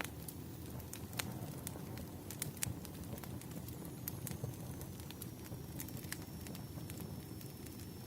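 Wood fire crackling: irregular sharp snaps and pops over a low steady rumble of burning logs.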